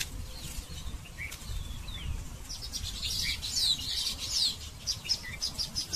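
Small songbirds chirping: a few scattered calls, then from about two and a half seconds in a busy run of quick, high chirps and short falling notes, over a low rumble on the microphone.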